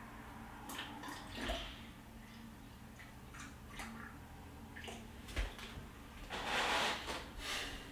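Distilled water poured from a plastic jug into a PC water-cooling loop's tubing, trickling and splashing, with a few short knocks of plastic being handled and a louder rush of noise for about a second near the end.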